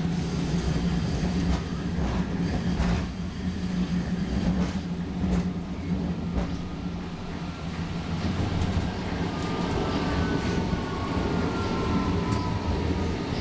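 Inside an Alstom Citadis Spirit light rail car running at speed: a steady low rumble of wheels on rail, with scattered clicks. In the last few seconds a faint whine slowly falls in pitch.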